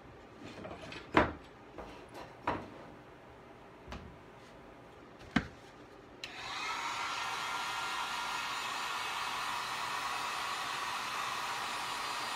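A few sharp knocks and clatters of things being handled on a workbench, the loudest about a second in. About six seconds in, an electric heat gun switches on and runs with a steady blowing hiss and a faint whine.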